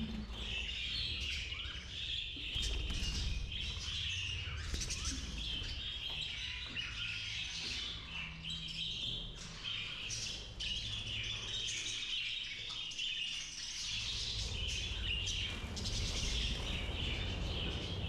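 A flock of budgerigars chattering and chirping continuously, many birds at once, over a low rumble.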